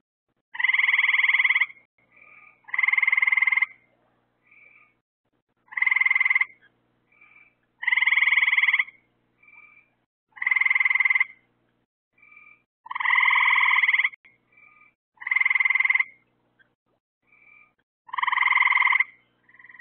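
Frogs calling at a backyard pond: one frog gives loud trilled calls of about a second each, eight times, roughly every two to three seconds. Fainter, shorter calls from another frog come between them.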